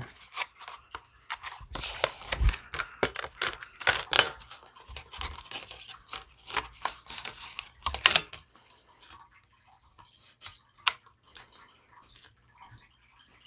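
Handling of a paw-print ink pad kit's packaging and cardboard cards: rustling, crinkling and small clicks, busy for the first eight seconds or so, then fewer and sparser.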